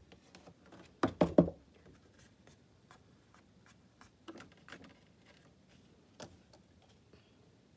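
Oil pastel sticks being handled on a tabletop: three quick knocks about a second in, then a few lighter taps and clicks.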